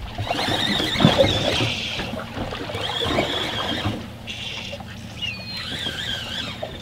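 Water lapping against a fibreglass boat hull, and a fishing reel cranked in two stretches while a fish is fought on a bent rod. A few high, wavering squeaks come about five to six seconds in.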